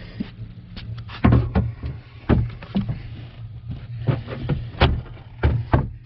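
Irregular knocks, taps and rustles from a handheld diagnostic scan tablet being handled and moved about, over a steady low hum.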